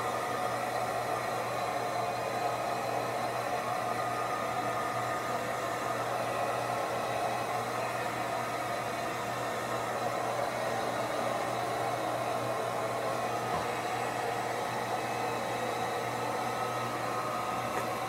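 Handheld hair dryer running steadily, an even rush of blown air over a low, constant motor hum.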